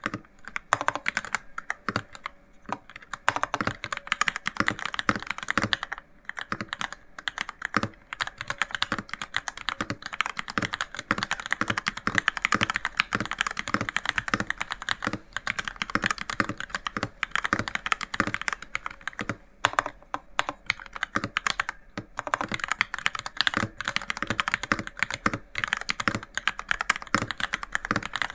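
Fast, continuous typing on a VEA88 Koi V2 tenkeyless mechanical keyboard with linear MX Red switches: a dense patter of key strokes, broken by a few short pauses.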